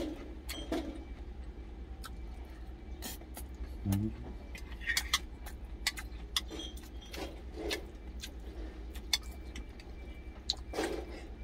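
Metal spoon clinking and scraping against a glass food container, many light clicks scattered through, over a steady low hum.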